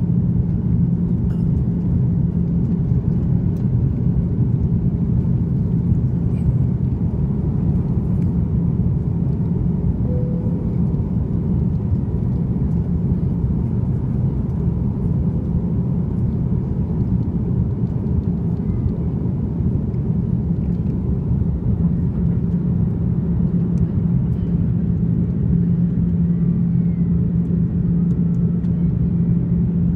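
Airbus A330-300's General Electric CF6-80E1 turbofan engines at takeoff thrust, heard from inside the cabin over the wing as the jet lifts off and climbs. A loud, steady noise with a steady low hum under it that grows a little stronger near the end.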